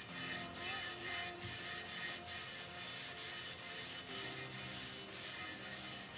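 Applicator pad rubbing coating onto the barrel of a Mamba M27 off-road wheel, in quick back-and-forth scrubbing strokes of about two to three a second.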